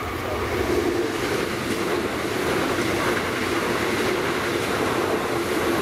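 Electric regional passenger train passing over a level crossing at speed: a steady rush of wheels on rails that swells during the first second and then holds.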